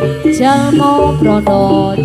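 Live Javanese gamelan music accompanying a jaranan dance. Struck metal-keyed and gong notes step through a melody, with a sliding melodic line rising over them about half a second in.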